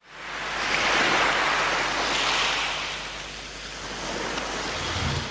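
A rushing, surf-like swell of water noise from a title-sequence sound effect. It rises within the first second and eases off, and ends in a low boom about five seconds in.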